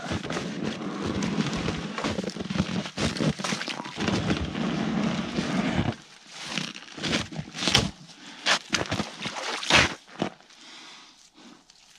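Slush and icy water crunching and splashing for about six seconds, stopping short. A run of sharp cracks and knocks follows as an iced-up tow rope is handled.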